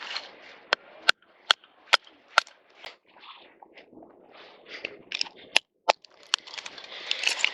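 A series of sharp wooden cracks and snaps, about two a second at first, then more irregular, over a faint hiss.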